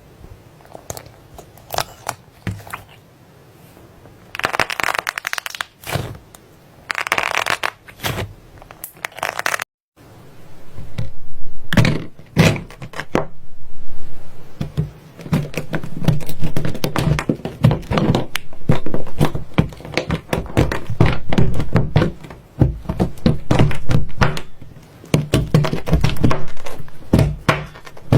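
Slime being squeezed and pressed by hand, giving dense crackling and popping clicks. After a brief break about a third of the way in, the clicks come in repeated swells about every two seconds.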